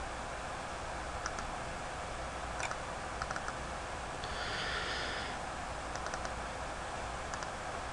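Scattered light computer mouse clicks over a steady low hiss, with a brief soft rush of noise about halfway through.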